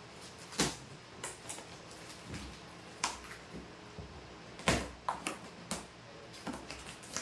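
Scattered sharp clicks, taps and short scrapes as packing tape on a cardboard cargo box is cut with a blade and pulled, the loudest knock a little under five seconds in.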